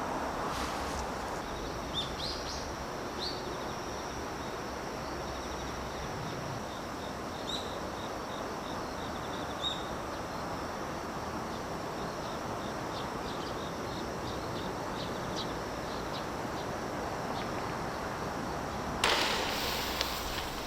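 Steady outdoor noise, with a small bird chirping a few times and faint insect-like ticking; a louder rush of wind or water swells up near the end.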